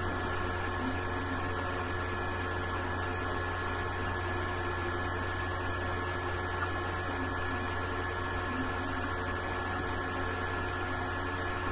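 Steady electrical hum with hiss, unchanging throughout, with no clear sound from the held bubblegum bubble.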